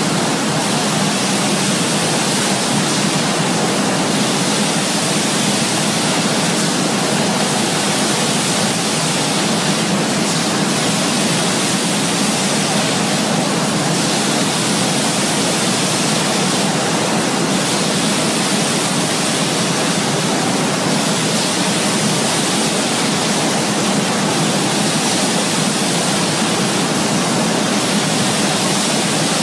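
Steady, even din of a running bottling line for PET juice bottles, with conveyor and machinery noise blended into one hiss-like wash with no distinct clicks or rhythm.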